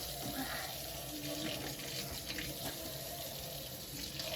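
Kitchen tap running steadily into the sink, an even rush of water.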